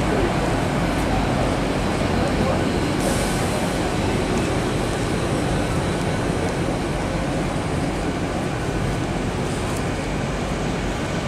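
Steady low rumble and hum of a Great Western Railway bi-mode Intercity Express train standing at the platform with its underfloor diesel engines running.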